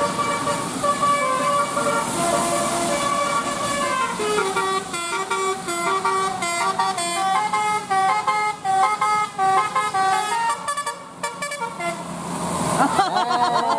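Bus "telolet" Basuri musical horn playing a tune of quick stepped notes, loud and sustained. Near the end it changes to a wavering, siren-like sweep.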